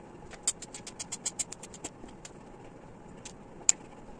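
Knife chopping a slab of dark compound chocolate into small pieces: a quick run of short clicks and snaps in the first two seconds, then a few scattered ones, the loudest near the end.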